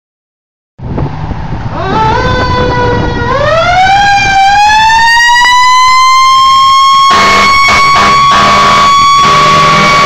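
A fire engine's siren winds up from a low pitch into a steady high wail over its engine, and from about seven seconds in it is joined by repeated loud blasts of its air horn.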